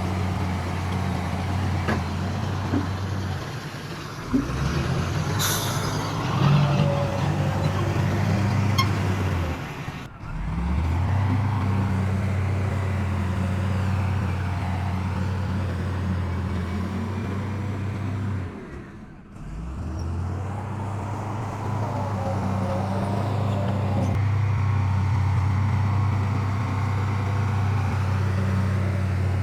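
Heavy diesel engines of dump trucks and a bulldozer running with a steady low drone. The drone breaks off abruptly twice and picks up again. A brief hiss comes about five seconds in.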